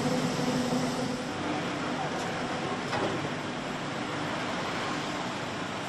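Automated engine-plant machining and washing station: steady machine hum with the hiss of fluid spraying inside the enclosure. The hum fades after the first second or so, leaving mostly the spray hiss.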